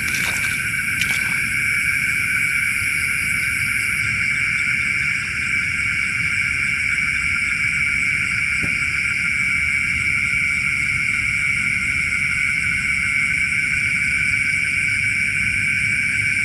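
Dense, steady chorus of night insects such as crickets, an unbroken high chirring, with a low steady rush underneath.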